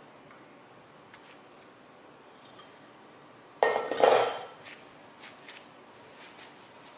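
A brief clatter of kitchenware set down on a hard surface, a clink with a short ring, about halfway through. A few faint soft taps follow as the dough is handled.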